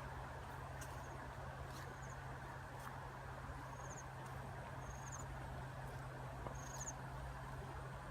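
Faint background ambience: a steady low hum under a soft hiss, with five short, high chirps at uneven spacing of one to two seconds.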